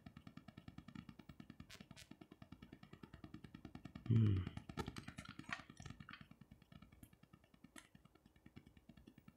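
Faint, rapidly pulsing low hum throughout, with one brief louder low sound about four seconds in. A few light ticks follow as tarot cards are handled and laid on the cloth-covered table.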